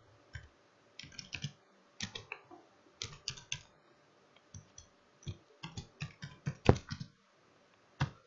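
Typing on a computer keyboard: short irregular runs of keystrokes with pauses between them, the loudest strokes about two-thirds of the way through, and one last single click near the end.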